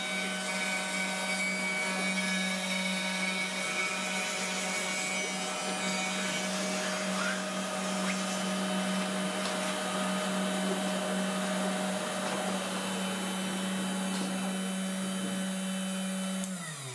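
CNC router spindle milling a wooden board, with a vacuum hose nozzle sucking up the chips beside the bit: a steady high-pitched drone over a hissing rush. Just before the end the sound winds down, its pitch falling as the machine stops.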